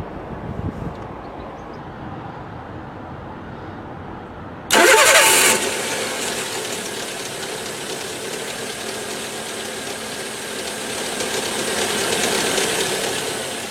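An engine starting: a low rumble, then a sudden loud burst about five seconds in as it catches, after which it runs steadily.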